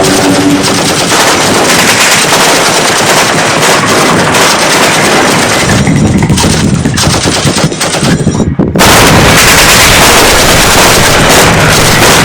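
Loud, continuous machine-gun fire in rapid, dense volleys. It eases off briefly about eight seconds in, then comes back suddenly at full strength.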